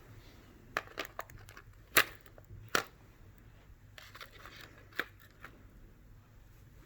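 A handful of sharp clicks and knocks from small hard objects being handled and set down: a quick cluster just under a second in, the loudest knock about two seconds in, then single ones near three and five seconds.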